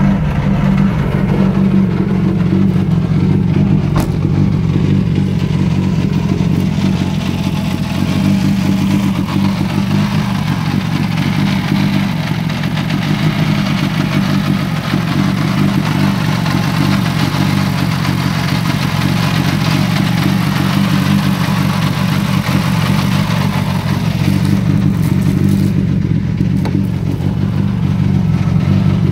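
Mitsubishi Lancer Evolution VI rally car's turbocharged 4G63 four-cylinder engine idling steadily, with one sharp click about four seconds in.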